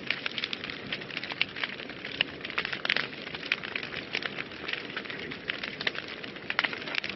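Wood fire burning in a fireplace: a steady hiss of flames with many irregular sharp crackles and pops.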